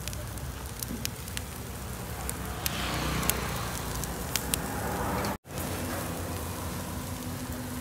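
Meat grilling over a charcoal fire: a steady crackling hiss with scattered sharp pops. It drops out for an instant about five seconds in, then carries on.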